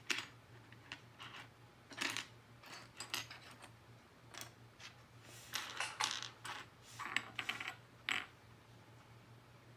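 Loose plastic LEGO pieces clicking and clattering as a hand sifts through them, searching for a small piece. The clatter comes in irregular bunches and stops about eight seconds in.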